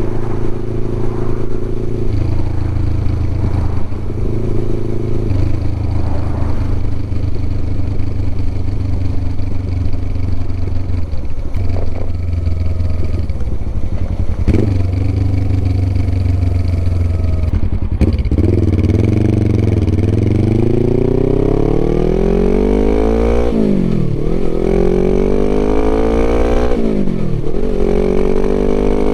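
Suzuki GS500E's parallel-twin engine through a Takkoni aftermarket exhaust. It runs at fairly steady low revs, then from about two-thirds in it accelerates hard, the pitch climbing, dropping sharply at two upshifts and climbing again.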